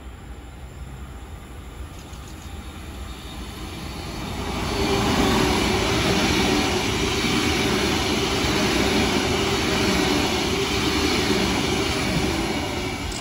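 Queensland Rail New Generation Rollingstock electric multiple unit approaching and running past close by, growing louder from about four seconds in, then a steady rolling of wheels on rail as the cars go by.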